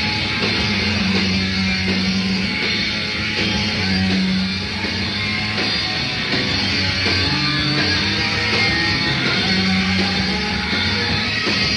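Live mod-revival rock band playing, a dense steady mix with electric guitar over a strong bass line.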